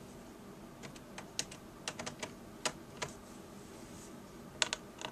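Faint, irregular small clicks and taps of a Phillips screwdriver working the tiny screws that hold a laptop's plastic screen bezel.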